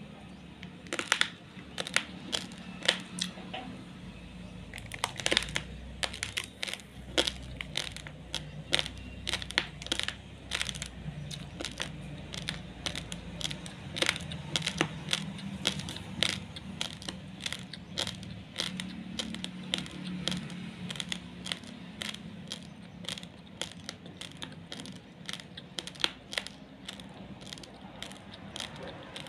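Raw, uncooked basmati rice grains being chewed and crunched between the teeth: a rapid, irregular run of sharp cracks, several a second.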